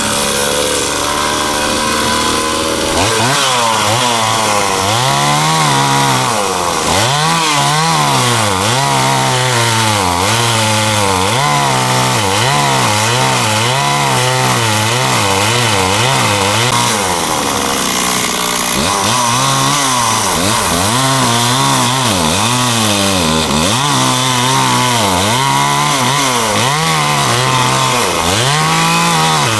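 Two-stroke chainsaw cutting into the trunk of a dead ash tree. It runs at a steady pitch for about three seconds, then its engine speed dips and recovers again and again as the chain bites, with a brief steadier stretch a little past halfway.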